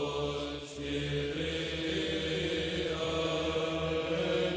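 Slow vocal chanting in long held notes, used as background music, with the pitch changing only every second or two.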